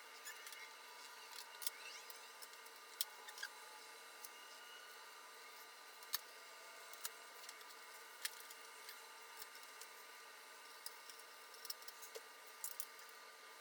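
Faint steady hiss with scattered light clicks and taps, a dozen or so at irregular intervals, the sharpest about three, six and eight seconds in.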